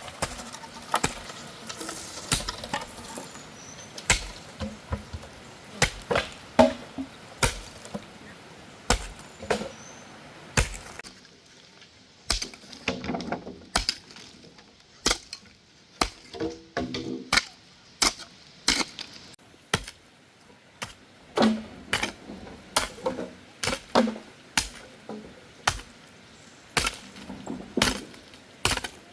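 Repeated sharp chopping blows of a hand tool, about one or two a second, keeping up an uneven rhythm with brief pauses.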